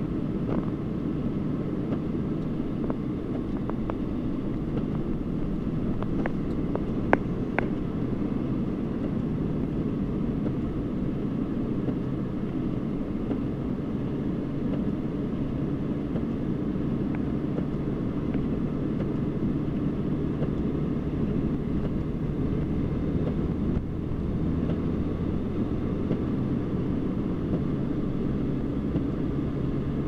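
Steady engine and road drone of a vehicle driving through snow, heard from inside the cab, with a few sharp clicks about six to seven seconds in.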